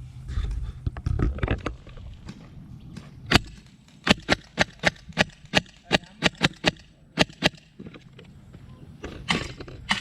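Airsoft gun shots: one sharp shot about three seconds in, then about a dozen more in quick, uneven succession, a few a second, with a few more near the end. Rumbling movement noise comes before the shots.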